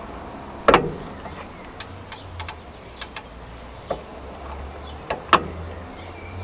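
Irregular metallic clicks and clinks of hand tools against a car's rear brake caliper, with two sharper knocks, one about a second in and one near the end.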